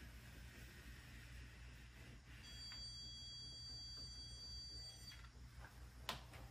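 Handheld electronic stud finder giving a steady high beep for about two and a half seconds as it is slid across the wall, its signal that it has found a stud. A light click comes near the end.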